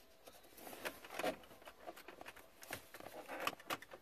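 Faint scattered clicks and rustles of gloved hands handling and tugging at plastic dash trim, with a few sharper clicks in the second half.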